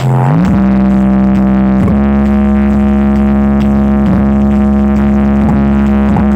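A large sound system's loudspeakers playing a loud, droning electronic tone that glides up in pitch about half a second in and then holds steady, with brief dips now and then.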